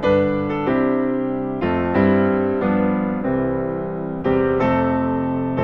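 Christmas piano music: a gentle tune of struck notes and chords, each ringing and fading before the next.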